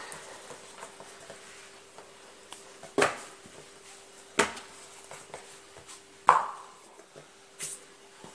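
About four light knocks and taps of hands and pastry on a wooden tabletop as squares of puff pastry are lifted and set down apart, over a faint steady hum.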